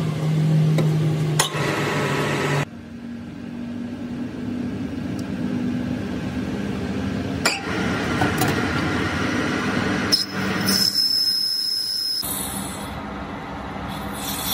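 Metal lathe running with its chuck spinning a brass workpiece, with a few sharp metallic clinks from the toolpost and wrench. The running sound changes abruptly several times, as at cuts between clips.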